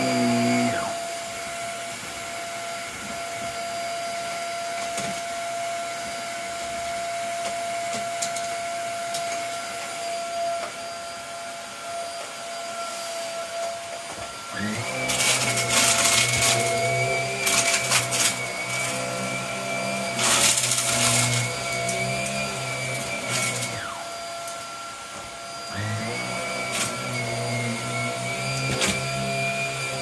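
Shark upright vacuum cleaner's motor whining, then shutting off about a second in. About halfway it starts up again with a rising whine and runs with harsh bursts of noise as it picks up debris from the bed, stops briefly, and starts once more near the end.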